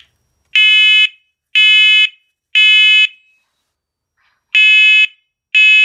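First Alert SC7010BVA smoke and carbon monoxide alarm sounding its loud piezo horn in the smoke-alarm pattern during a unit test. It gives three beeps of about half a second, one second apart, then a pause, then the next set of three begins.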